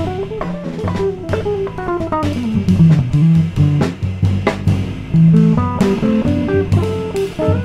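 Jazz trio of electric guitar, electric bass and drum kit playing, with a quick line of plucked notes that runs down in pitch from about one to three seconds in, over a walking bass line and cymbal strokes.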